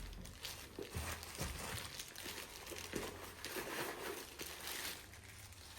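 Packaging rustling and crinkling in irregular crackles as purchased items are handled and unwrapped.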